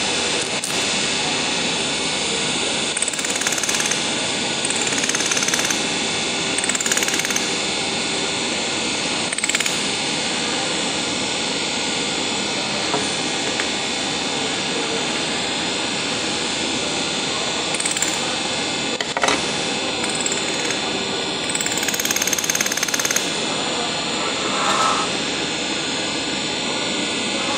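A steady, loud rushing noise of workshop machinery running. Over it come a few short, high, falling squeaks and a couple of light taps as the welded sheet-metal letter is handled on the bench.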